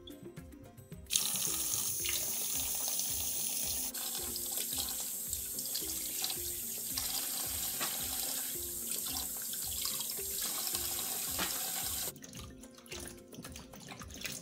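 Kitchen tap running into a plastic tub of grapes and cucumbers in a sink, water splashing onto the produce. It comes on suddenly about a second in and cuts off about two seconds before the end.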